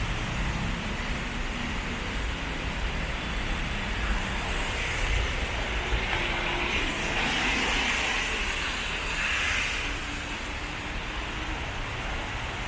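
Road traffic running steadily, with one vehicle passing louder from about seven to ten seconds in.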